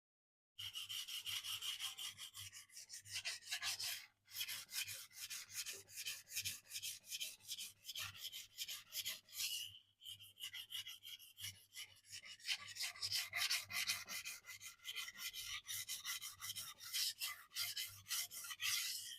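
Steel knife edge scraping in quick back-and-forth strokes on a wet sharpening stone, several strokes a second, with brief pauses about four and ten seconds in.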